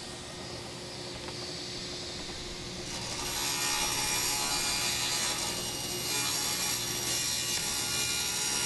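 Wood being sawn, a steady rasping noise that grows louder about three seconds in.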